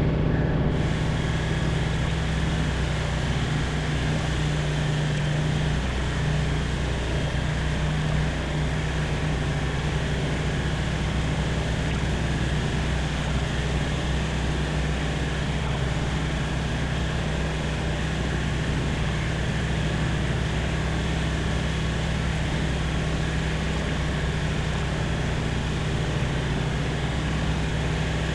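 Light aircraft's piston engine and propeller droning steadily, heard inside the cockpit, with a wide rushing noise over the engine's low, even hum.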